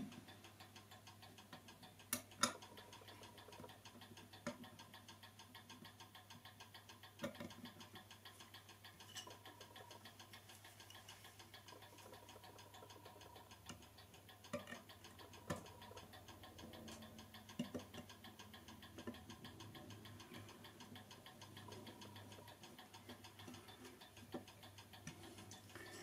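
Near silence: a few small, separate metallic clicks as a screw is driven through the click spring of a clock movement, over a faint steady ticking.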